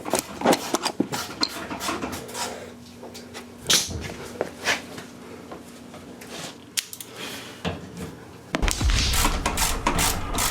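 Hand tools clinking and knocking against metal parts as a car is being taken apart, irregular sharp clicks and clatter. Near the end it switches abruptly to a steadier low rumble with more clatter on top.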